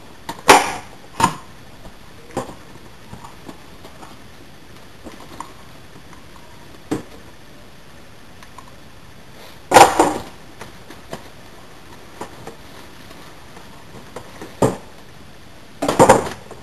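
Unboxing handling noise: cardboard box flaps pulled open and a plastic-wrapped fog machine lifted out, giving short scrapes, bumps and plastic crinkles. The loudest handling sounds come about half a second in and around ten seconds in, with a cluster of crinkles and bumps near the end.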